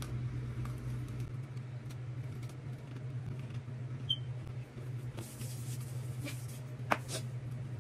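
Faint crinkling of a snack packet being torn open with the teeth, then quiet chewing, over a steady low hum. One sharp click stands out about seven seconds in.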